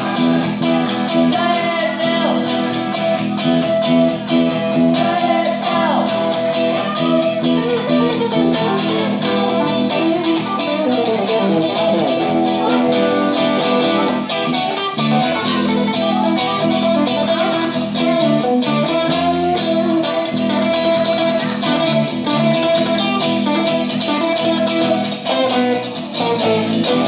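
Live rock band playing an instrumental passage on electric guitars, bass guitar and drum kit, with guitar notes that bend in pitch.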